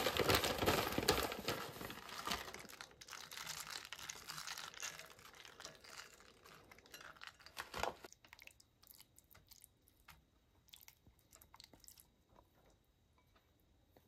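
Dense crinkling and crunching handling noise, loudest in the first few seconds and dying away by about eight seconds, followed by scattered light clicks and taps.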